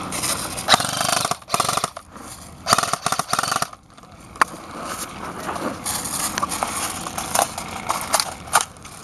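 Airsoft guns firing: several rapid full-auto bursts in the first four seconds, then scattered single sharp shots.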